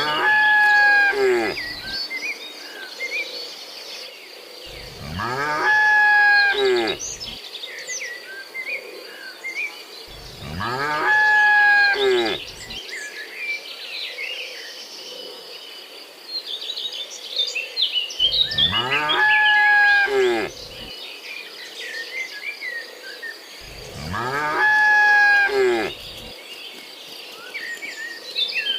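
Cattle mooing: five long moos of about two and a half seconds each, a few seconds apart, over steady chirping of crickets and birds.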